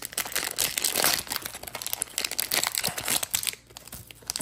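Plastic wrapper of a Topps baseball-card fat pack being torn open and peeled off the cards, crinkling, busiest over the first three seconds and then quieter.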